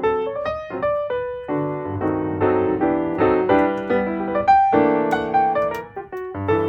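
Background music: a piano playing a run of notes that strike and fade at a steady pace.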